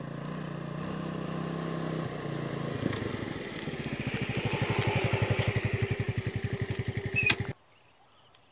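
A small motor scooter's engine running as it rides up and passes close by. It starts as a steady hum and turns into a fast, even pulsing exhaust note that is loudest about halfway through. The sound cuts off abruptly near the end.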